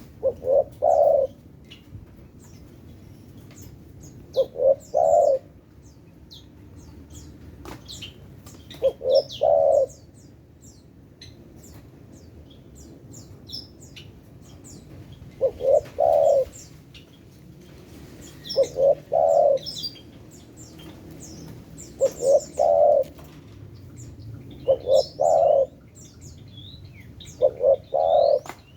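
Spotted dove (tekukur) cooing: a phrase of a couple of short notes and then a longer rolling coo, repeated eight times at intervals of a few seconds. Faint high chirps of small birds sound in between.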